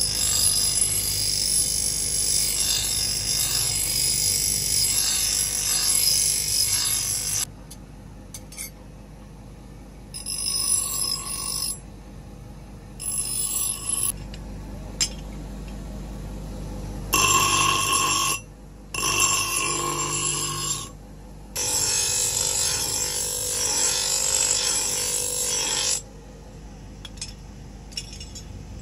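Grinding wheel grinding a steel axe head held in tongs. There is a long bout of steady grinding, then several shorter bouts with a ringing whine, separated by quieter stretches as the head comes off the wheel.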